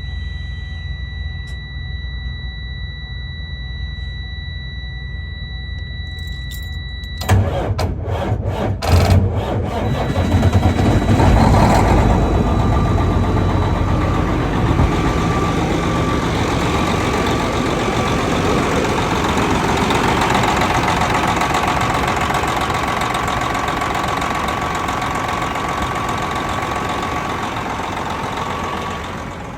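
A big-rig truck's diesel engine is cranked and started after a steady high tone of about seven seconds. It turns over unevenly for a couple of seconds, catches, and settles into a steady idle with a thin whine above the engine note. It is run up to check for exhaust leaks at a newly replaced turbo-outlet exhaust clamp.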